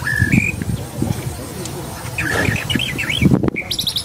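Birds calling: a two-note rising whistle at the start, then a quick run of short chirps and whistled notes in the second half, over low rumbling noise. The sound cuts out briefly near the end.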